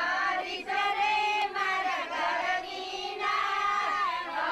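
A group of women singing together in unison, unaccompanied, with long held notes.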